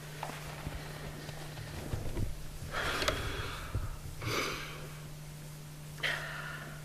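A person breathing hard while trudging through deep snow with poles: three short, heavy puffs of breath about a second and a half apart, with soft thuds of steps in the snow between them.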